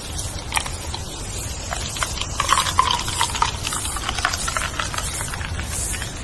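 Leaves rustling and crackling in the wind, with short bird chirps, most of them in the middle of the stretch.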